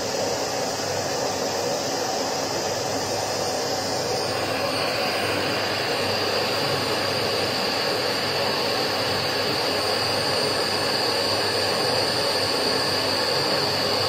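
AEG LX7 750 W bagless canister vacuum cleaner running steadily, a loud rush of air and motor noise. About four seconds in, as the power dial is turned, its tone changes and a steady high whine rises over the airflow.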